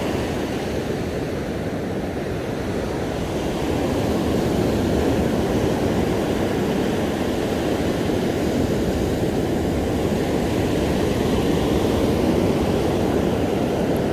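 Steady low rush of ocean surf breaking on a sandy beach, a little louder from about four seconds in.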